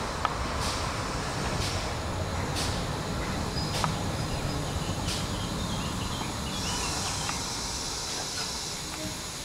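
Steam tank locomotive running slowly with a train of wagons over a steady low rumble. Its exhaust beats come about once a second, space out and stop about five seconds in. Then a hiss of steam rises for a couple of seconds.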